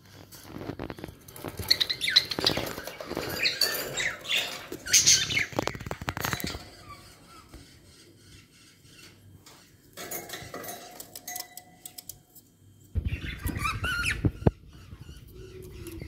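Pet budgerigars chirping and chattering in a cage, mixed with sharp clicks and scratching, in spells: busiest in the first six seconds, quieter in the middle, and another burst with low thumps near the end.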